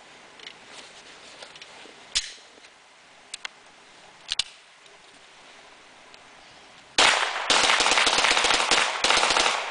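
A few sharp metallic clicks of a 9mm pistol being handled while its jam is dealt with. Then about seven seconds in, rapid fire from two 9mm pistols, a Glock and a Ruger P95, shot at once, the reports coming close together until near the end.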